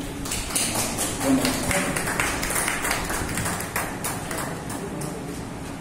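Scattered clapping from a small audience: a few seconds of irregular claps that thin out and stop.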